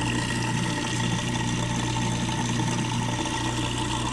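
Newly installed Badger 100 garbage disposal running steadily with a constant electric hum, on its first test run after installation.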